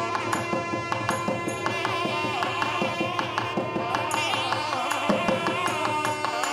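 Background Indian classical music in Carnatic style: a sustained pitched melody over quick, even drum strokes.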